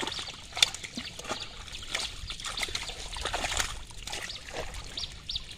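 Live fish flapping and splashing in a shallow net full of water as hands grab them out, giving a busy patter of small splashes and trickling water, with one sharper splash about half a second in.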